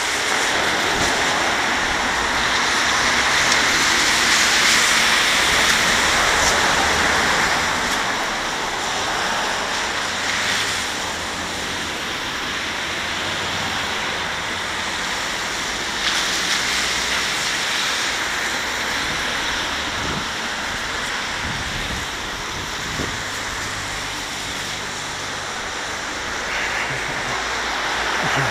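Steady hiss of car tyres on a wet street, with traffic swelling louder during the first several seconds and then settling to a lower, even wash of road noise.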